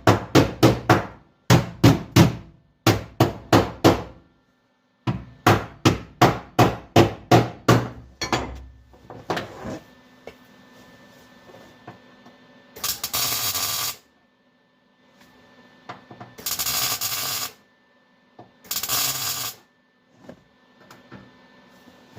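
Hammer rapidly striking a sheet-steel floor patch, about four or five blows a second in several short runs, setting the panel down. This is followed by three short bursts of welding crackle, about a second each, typical of tack welds on the patch.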